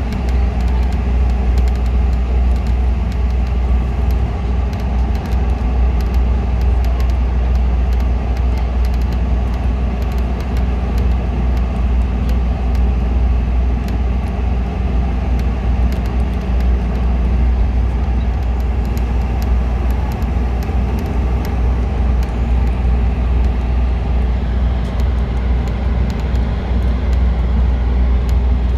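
City bus driving along the road: a steady, loud, low engine and road rumble, with light rattling clicks throughout.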